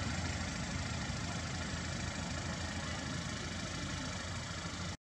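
Steady low rumble of an idling engine, with no monkey calls heard, cutting off to dead silence near the end.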